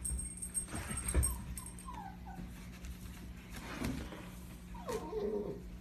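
Dog whimpering in short, falling whines, with paws knocking and scraping at a cardboard gift box; a soft knock about a second in, and the clearest run of whines near the end.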